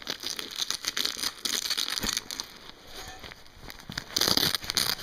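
Velcro (hook-and-loop) fastener on the back pocket of a fabric stroller seat being ripped open, in rough tearing rasps with fabric rustling. A louder tear comes near the end.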